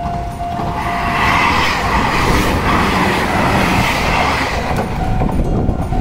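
A Meitetsu electric train passes over a level crossing. Its wheels run loud over the rails, swelling to a peak mid-way and fading near the end. The crossing's warning bell keeps dinging in a steady rhythm, drowned out as the train goes by and clear again near the end.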